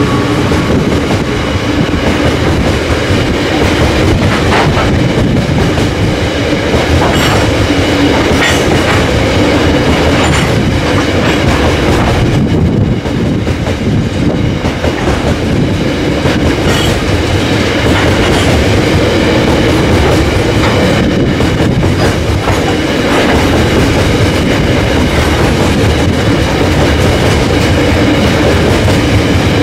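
Loaded coal hopper wagons of a long freight train rolling past close by: a steady, loud rumble of steel wheels on rail, with intermittent clicks as wheels cross rail joints.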